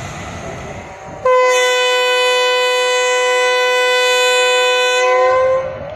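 Locomotive horn giving one long, steady blast of about four seconds, starting suddenly a little over a second in, over the low rumble of a train.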